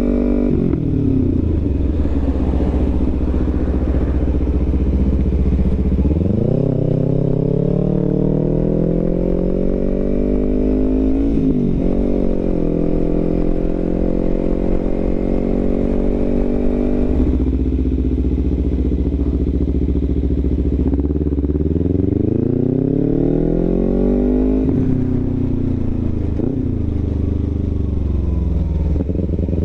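Kawasaki Ninja 300's parallel-twin engine on the move: it slows at first, then pulls away about six seconds in with the pitch climbing, dipping at a gear change. It eases off about halfway, then accelerates again with another gear change near the end.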